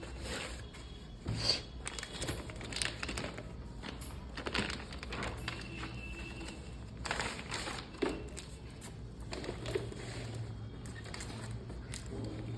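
Packaging being handled: plastic wrap and cardboard crinkling and rustling, with irregular clicks and light knocks.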